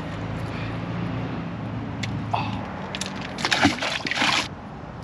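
A magnet-fishing magnet on a rope dropped into a river, splashing into the water about three and a half seconds in.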